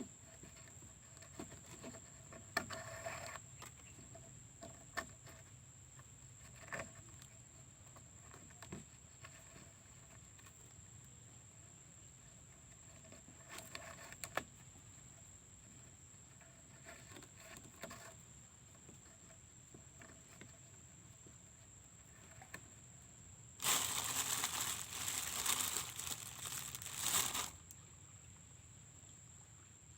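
Scattered soft crinkles and clicks of handling, then a louder rustling burst of about four seconds near the end, over a faint steady high-pitched whine.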